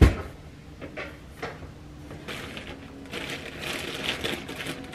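A plastic bread bag crinkling as it is handled, a dense crackle that builds up over the second half. It follows a sharp knock right at the start, from handling the stainless toaster.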